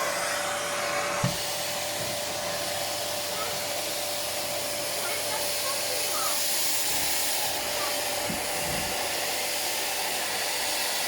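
Beko bagged vacuum cleaner running at full power: a steady rush of air with a constant whine. About a second in there is a knock and the sound changes, as the nozzle seals against the wall.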